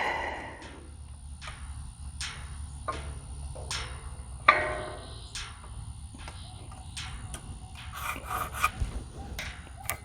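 Pencil scratching short marks on a wooden fence board, a run of brief strokes roughly every second with one louder stroke about halfway through, marking where the gate latch will mount.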